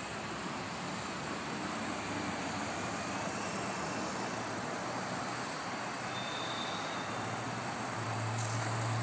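Steady road traffic noise, with a low engine hum growing louder near the end.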